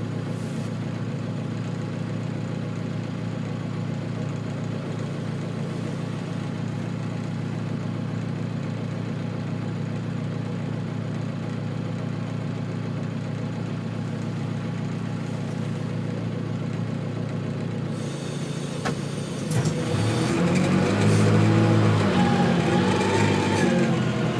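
Green John Deere tractor's engine idling steadily, heard from inside the cab. About 19 seconds in it gets louder and its pitch rises and falls as the engine picks up speed.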